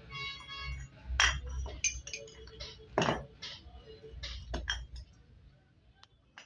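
Hard objects clinking and knocking together: a short metallic ring at first, then a series of sharp knocks that thin out to a few light ticks.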